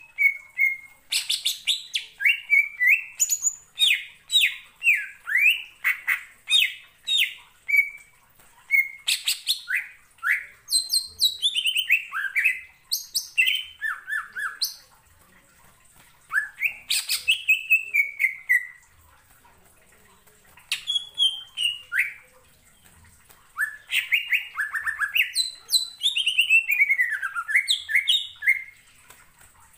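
Male green leafbird (cucak ijo) singing a loud, varied song of rapid chirps, trills and downward-sliding whistles. It breaks off for a second or two a few times in the second half.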